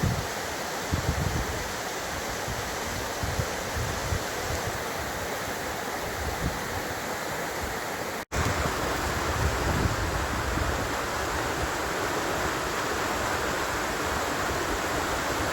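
Running water, a steady rushing hiss, with low buffeting of wind on the microphone. It cuts out for an instant a little past halfway and comes back slightly louder.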